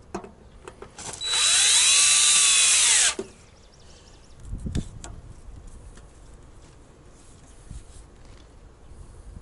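Cordless drill-driver driving a screw to fasten the plastic wiring cover on a mini-split outdoor unit. The motor runs for about two seconds starting a second in, its whine rising then falling, followed by a dull knock a little later.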